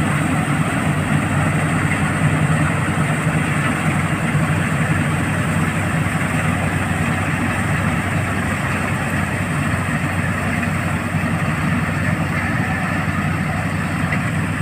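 Preet 849 combine harvester's engine running steadily, a loud, even mechanical hum.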